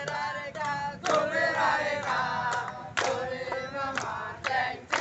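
A group of men singing a chant together, with several sharp handclaps cutting through.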